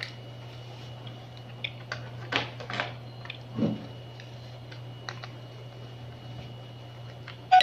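Scattered small clicks and crackles of cooked crab shell being handled, pulled apart and chewed, over a steady low hum.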